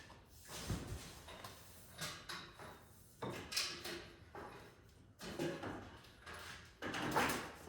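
A series of scrapes and knocks, about five, spaced a second or so apart: someone moving about and handling things.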